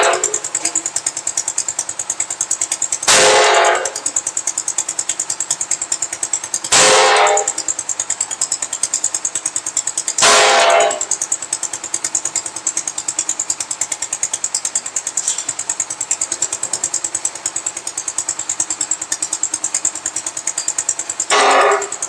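Portable concrete mixer running: its engine keeps a steady, fast, even beat, and a louder clanking burst about half a second long comes roughly every three and a half seconds, four times in the first eleven seconds and once more near the end.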